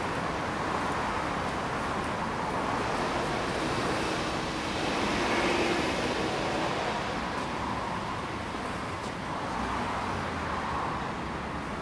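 Steady hum of distant road traffic, swelling a little about halfway through.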